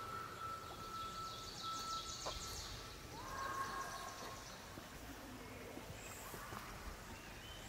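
Faint outdoor ambience in woodland with distant birdsong: high chirps during the first few seconds and a whistled note that rises and then holds about three seconds in.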